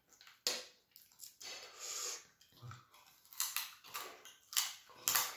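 Close-up mouth sounds of eating by hand: irregular wet chewing and lip smacking as food is sucked off the fingers.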